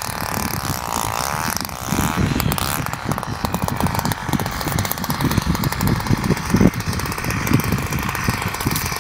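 Strong wind buffeting the microphone: a loud, gusty rumble that swells and drops irregularly.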